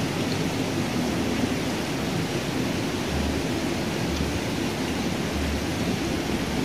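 Steady rushing and splashing of water pouring from an inlet pipe into a fish pond, with a few soft low thumps about three to five seconds in.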